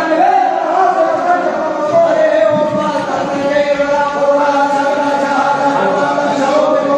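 A group of voices chanting a Hindu mantra in unison, with long held notes that shift slowly in pitch.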